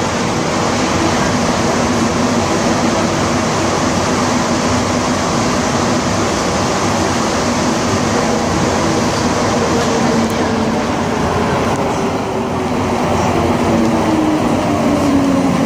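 Montreal Metro AZUR rubber-tyred train running through a tunnel, heard from inside the car as a loud steady rush. A whine from the drive falls in pitch over the last several seconds as the train slows toward a station.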